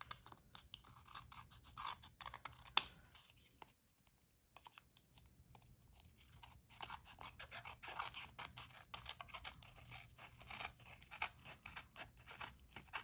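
Small scissors snipping away excess paper wallpaper along the edge of a thin wooden panel: a run of faint crisp cuts, a louder snip about three seconds in, a short pause, then a steady series of quick small snips.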